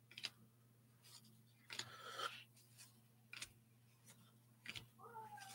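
Faint, scattered rustles and flicks of 1987 Topps baseball cards being handled and sorted through, over near-silent room tone.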